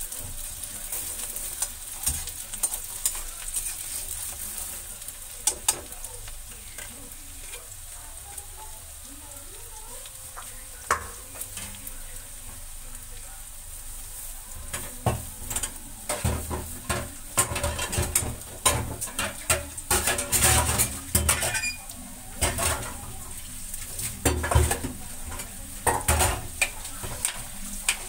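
Chopped onions sizzling in hot oil in a kadhai, with a steady hiss. A slotted spatula scrapes and knocks against the pan while stirring, a few times early on and in quick runs through the second half.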